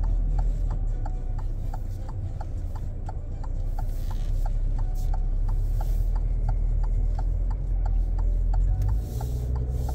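The car's turn-signal indicator ticking steadily, about three ticks a second, during a left turn, over the low rumble of the car rolling slowly in the cabin.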